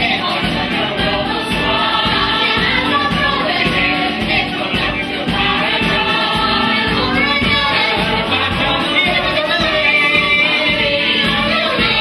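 A school musical-theatre cast singing together as a choir over instrumental accompaniment, in the show's finale number.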